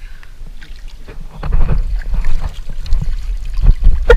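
Water splashing and trickling, over a heavy low rumble that swells about one and a half seconds in.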